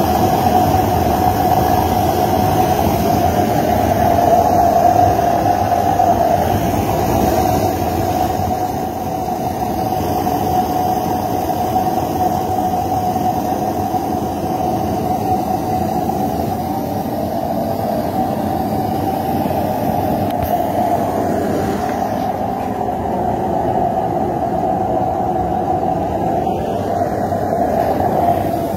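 Home-made diesel burner running: a spray gun blows atomised diesel into a slotted steel tube and the flame burns with a loud, steady rushing sound that has a hum in it.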